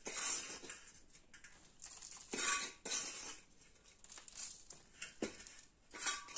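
A hand scooping dry potting soil in a stainless steel bowl, the soil and fingers scraping against the metal in several short gritty bursts, the loudest about two and a half seconds in.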